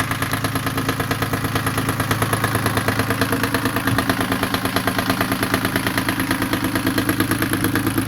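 Yanmar 3GM30F three-cylinder marine diesel idling steadily with an even, rapid chugging beat, just after starting.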